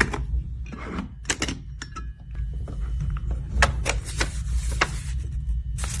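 Parts of a steampunk puzzle box being handled and fitted: a string of sharp clicks and clacks, coming faster in the second half, with a brief metallic ring about two seconds in, over a low steady hum.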